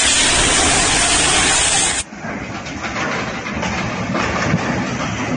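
Muddy floodwater rushing in a torrent, a loud steady rush. About two seconds in it cuts to another flooding river, quieter and duller.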